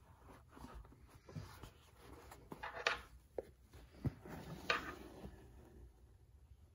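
Faint rustling and light ticks of hand embroidery: embroidery floss drawn through a cap's fabric and a wooden embroidery hoop being handled, with a few sharper ticks between about three and five seconds in.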